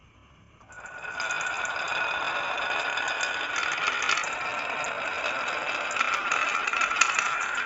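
Marbles rolling and clattering down a wooden HABA marble-run track: a steady rolling rattle with small clicks, starting suddenly about a second in.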